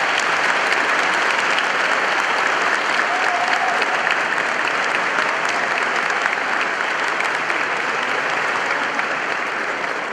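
Audience applauding: a dense, steady clapping of many hands that eases off slightly near the end.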